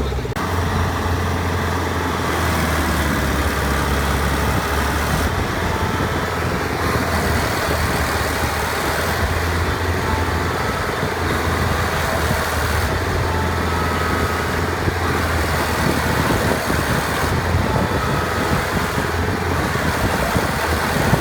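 Diesel engine of heavy farm machinery running steadily, with a continuous low hum and mechanical clatter.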